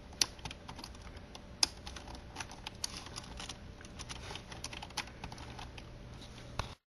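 Computer keyboard keys clicking at an irregular pace as emoticons are typed with Shift, colon and parenthesis key combinations, with two louder clacks about a quarter second and a second and a half in. The sound cuts off abruptly near the end.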